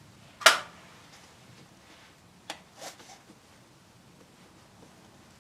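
Single shot from a Bear Creek Arsenal BC-15 rifle with a 16-inch barrel about half a second in, the loudest sound, with a short echo. It is followed by a sharp click and a fainter knock a couple of seconds later.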